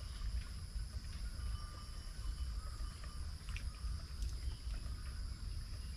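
Outdoor ambience: a steady low rumble with a constant high drone of insects above it, and a few faint ticks.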